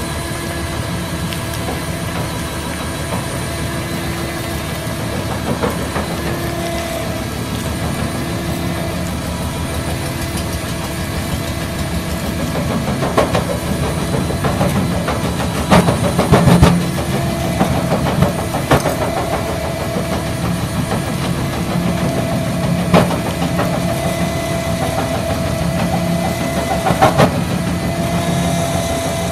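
Caterpillar 336E excavator's diesel engine running steadily with a whine, its crusher bucket working rubble; from about halfway on, sharp cracks and knocks of stone breaking come several times, the loudest about two thirds through.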